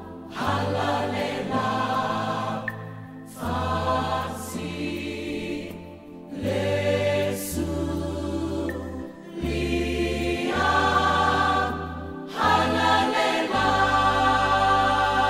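Choral music: voices singing together over held bass notes that change every second or two, with short breaks between phrases.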